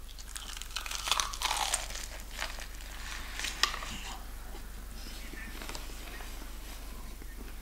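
Crispy KFC fried chicken being bitten into and torn apart by hand: crackling crunches of the fried coating through the first four seconds, with one sharp crack about three and a half seconds in, then quieter.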